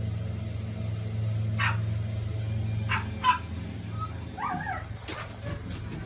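A dog barking three short times, then a wavering yip a little past halfway, over a steady low hum.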